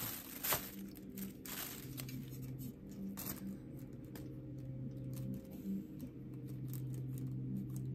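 Plastic packaging crinkling and crackling in short bursts as items are handled, over a low steady hum.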